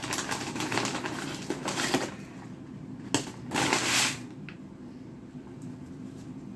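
Paper sandwich wrapper crinkling and rustling as it is pulled open, then a sharp tick and another brief crinkle a little after three seconds, before it quiets down.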